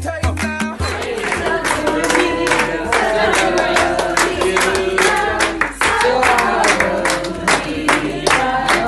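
A group of people singing a birthday song together and clapping in time. A background music track with a heavy bass beat cuts out about a second in.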